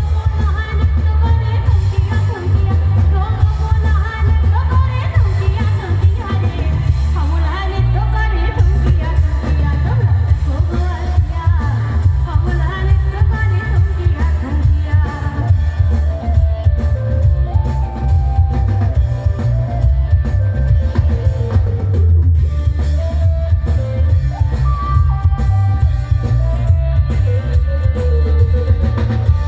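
Loud music with a heavy, steady bass and a singing voice carrying a melody, played through a sound system.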